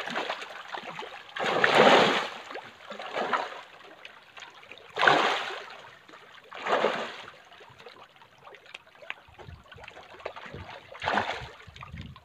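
Lake water splashing in separate surges a second or more apart, with a faint trickling and lapping between them.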